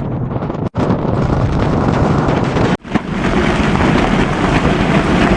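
Wind buffeting the microphone: a loud, steady rumbling rush that drops out abruptly twice, about a second in and again near three seconds, where the clips are cut.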